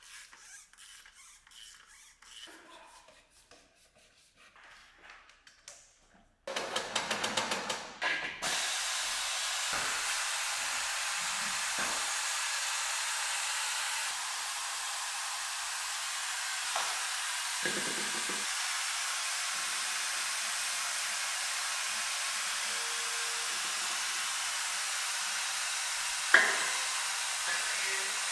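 Faint clicking of a hand tool working at the engine, louder and quicker for a couple of seconds, then a long steady hiss as old engine oil drains into a shop oil drain unit, with one sharp knock near the end.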